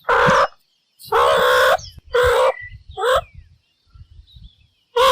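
A series of five short, harsh, caw-like animal calls with silent gaps between them.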